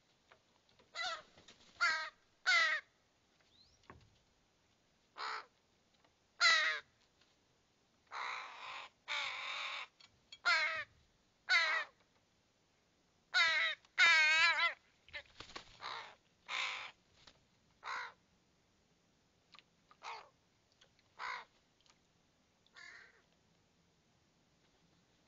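Fledgling ravens calling: a string of harsh, short caws at irregular intervals, with a few longer, rougher, wavering calls in the middle.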